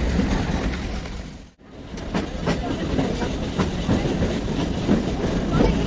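Ooty toy train carriage running along the track, its wheels clacking over rail joints over a steady rumble. The sound drops out briefly about one and a half seconds in.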